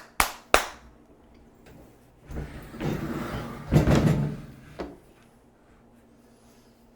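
Two sharp hand claps, likely audio-sync claps, in the first second, followed about two seconds later by a loud sliding, scraping handling noise of a couple of seconds, loudest towards its end.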